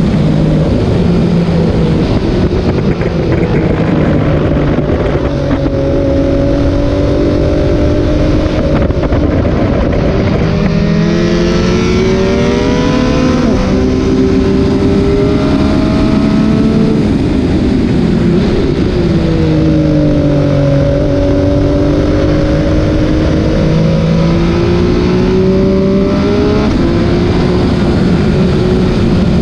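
Triumph Speed Triple RS three-cylinder engine pulling hard on track. Its pitch climbs through the revs and drops back at each gear change, over a constant rush of noise.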